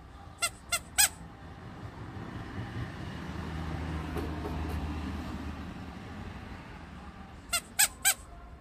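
Cockatiel giving three short, sharp chirps, then three more near the end. Between them a low rumble swells and fades.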